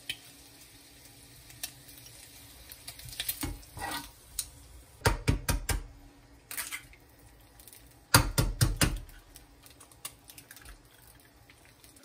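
Cutlery clinking and scraping against a ceramic plate as jam is spread on toast, in several short bursts of sharp clicks, the loudest about five and eight seconds in. Bacon sizzles faintly and steadily in a frying pan underneath.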